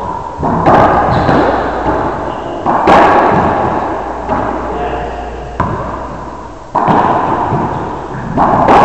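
Racquetball rally: the hollow rubber ball smacked by racquets and off the court walls, about six sharp hits one to two seconds apart. Each rings on in the echo of the enclosed court.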